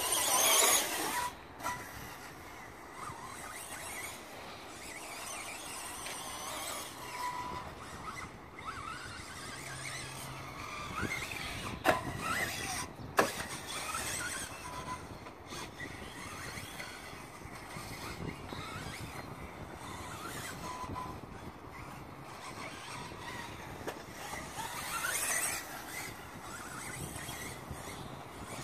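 Sworkz S12-1R 1/10 electric RC buggy driving laps, its motor whining up and down in pitch with the throttle. It is loudest as it passes close by at the start and again near the end. Two sharp knocks come a second apart midway.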